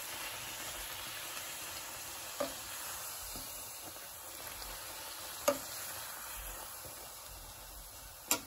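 Puri deep-frying in hot oil in a kadhai, a steady sizzle as it puffs up, with three sharp clicks spaced about three seconds apart.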